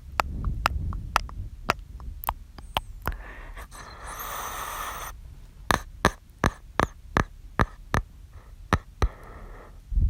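Close-miked ASMR mouth sounds: a run of sharp, wet clicks and pops from lips and tongue, irregularly spaced, with a breathy hiss lasting about two seconds from three seconds in.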